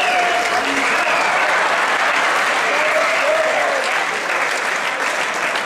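Audience applauding, a dense steady clatter of clapping that eases off slightly near the end.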